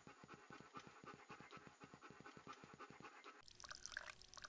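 Faint, rapid dog panting, about six pants a second; about three and a half seconds in, a hissing trickle of liquid begins, a dog peeing.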